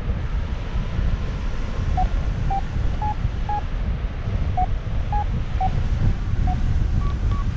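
Airflow rushing over the microphone in paraglider flight, with a variometer giving short beeps about twice a second from about two seconds in, pausing briefly midway. The beeps rise in pitch near the end, the vario's signal of weak lift turning into a climb.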